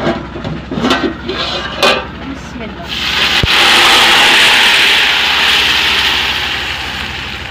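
A hot cooking pot of browned onions sizzling as gur (jaggery) syrup is poured into it: a sudden loud hissing rush about three seconds in, strongest at first and slowly dying down. A single sharp click comes just after the hiss begins.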